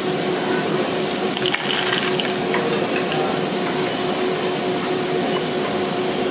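Steady hiss of the running robot workcell with a faint steady hum, and a few faint clicks in the first half.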